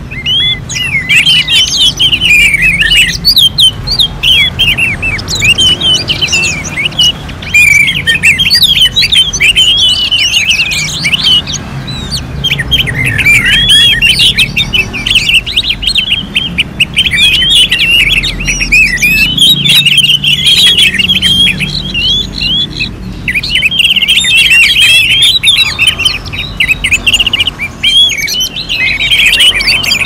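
Orange-headed thrushes singing over one another in a dense, almost unbroken stream of quick, varied whistled phrases, with only brief pauses.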